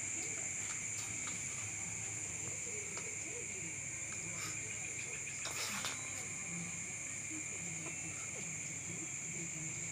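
A steady high-pitched insect chorus, crickets chirring without a break, with faint scattered clicks and a brief rustle about five and a half seconds in.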